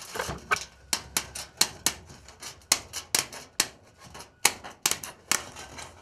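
Tin snips cutting through galvanised 6 mm welded wire mesh, one sharp click as each wire is snapped. The clicks come about two or three a second, with a short pause past the middle.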